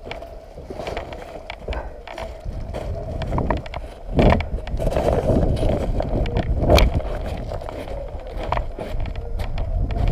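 Rumbling movement and handling noise with scattered clicks and knocks, and two louder sharp knocks about four and nearly seven seconds in.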